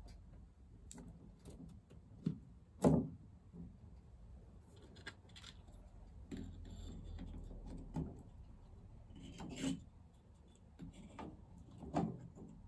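Handling noise of a wire mesh panel being fitted onto 3D-printed plastic wall mounts: scattered light clicks, taps and rubbing of the wire frame against the mounts, with a sharper knock about three seconds in and another near the end.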